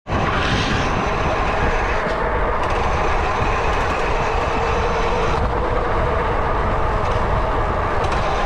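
Steady rolling rumble of a fat-tire mountain bike being ridden, with wind on the microphone and a constant tyre hum.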